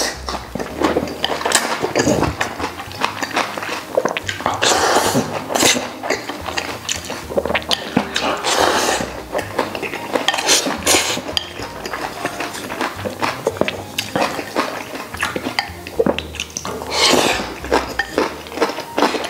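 Close-up eating sounds: glass noodles slurped in with several long sucking breaths, chewing, and wooden chopsticks clicking against a ceramic bowl.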